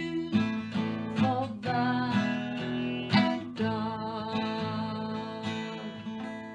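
Acoustic guitar strumming the song's closing chords, the last chord left ringing and fading out.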